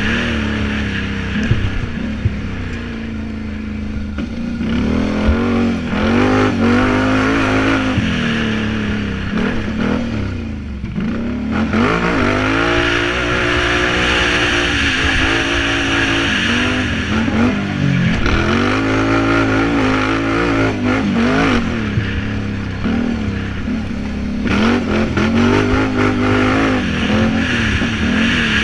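Can-Am Renegade 800R quad's V-twin engine revving hard and backing off over and over. Its pitch climbs and drops every couple of seconds as the throttle is worked around a dirt track, easing off briefly about ten seconds in.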